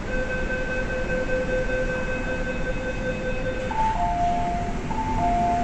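A steady electronic tone held for about three and a half seconds from the stopped MTR train and platform doors. It is followed by a two-note high-low door chime that sounds twice, the signal that comes as the doors open.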